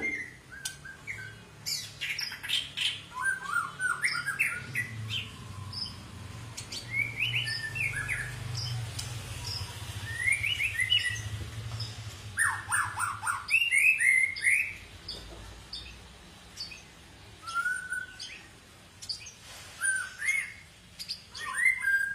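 White-rumped shama (murai batu, long-tailed Medan type) singing: a run of short phrases of clear whistled notes and sharp chirps, many sliding up or down in pitch, separated by brief pauses.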